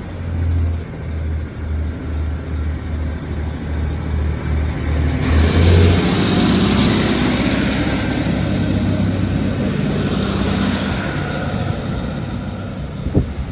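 Class 156 diesel multiple unit pulling out of the station under power. A low, evenly pulsing engine sound comes first; from about five seconds in the noise swells, with a rising whine, as the unit picks up speed past the platform, loudest about six seconds in, then slowly fading as it draws away.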